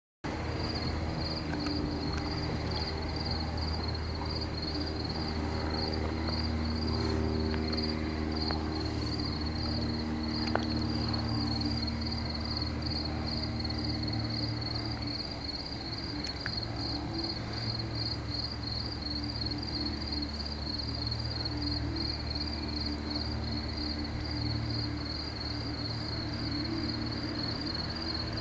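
Night insects chirping in a steady, evenly pulsing high trill, over a low steady mechanical hum, with a single faint click about ten seconds in.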